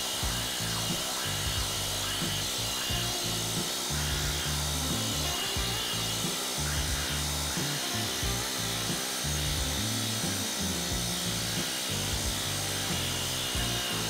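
Background music with a steady beat over the continuous rapid rattle of a hoop-style pneumatic planishing hammer smoothing a domed sheet-metal dish.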